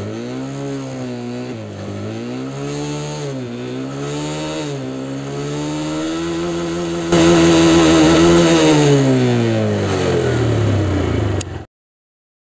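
TVS Raider 125's single-cylinder 125cc engine being revved through the gears on the main stand, rear wheel spinning free with no load. The engine note climbs and drops back at four upshifts, then holds near top speed and jumps louder about seven seconds in. Near the end it falls away in pitch and cuts off suddenly.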